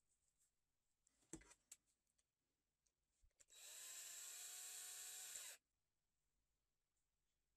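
Cordless drill-driver running steadily for about two seconds, driving a screw through a ball bearing into a small plywood block. A few sharp clicks come just before it.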